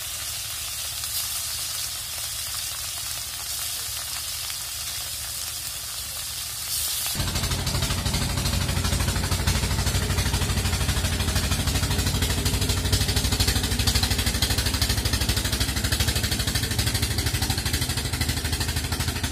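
Pieces of grass carp frying in hot oil in an iron karahi, a steady sizzle. About seven seconds in it switches abruptly to a river boat's engine running with a fast, even chugging, steady as the boat motors along.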